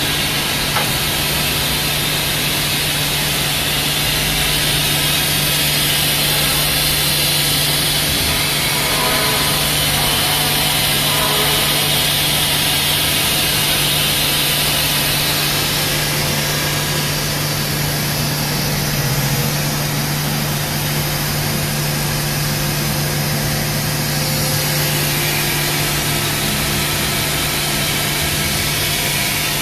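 Okuma MX-45VA vertical machining center running, a steady hum with an even hiss over it.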